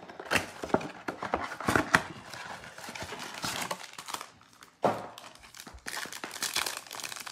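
Cardboard blaster box being torn open and sealed trading-card pack wrappers crinkling, then one pack's wrapper pulled apart: irregular crackling and snapping, with a quieter lull a little past halfway.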